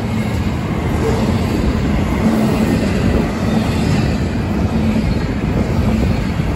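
Double-stack intermodal well cars rolling past close by, a steady loud rumble of steel wheels on the rails.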